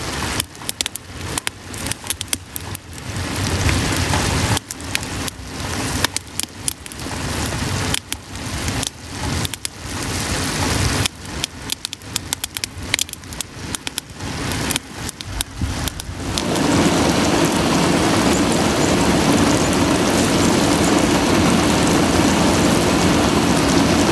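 Maple sap at a rolling boil in a large flat pan on a homemade wood-fired evaporator: a rain-like bubbling and spattering. About two-thirds of the way through it turns into a louder, steady rush.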